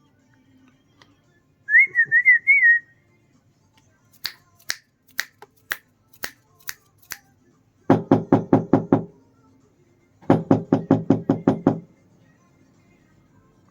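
Test noises for a sound-level meter: a short warbling whistle, then a series of about eight sharp finger snaps, then two quick runs of rapid pulses, about eight a second.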